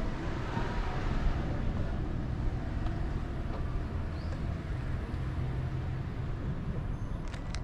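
Steady low outdoor rumble with a light hiss above it, and two faint clicks near the end.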